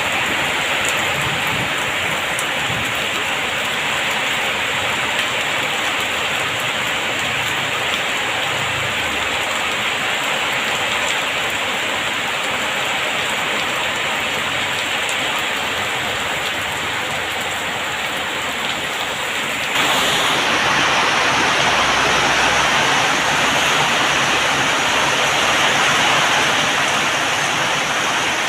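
Heavy rain falling steadily, with a sudden step up in loudness about two-thirds of the way through, after which it stays louder.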